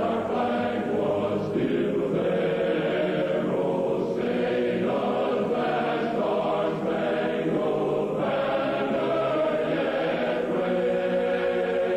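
A choir singing in long held chords that change every second or two: a slow choral rendition of the national anthem.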